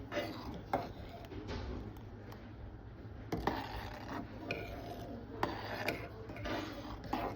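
Kitchen utensils scraping and clicking in several short strokes, over a low steady hum.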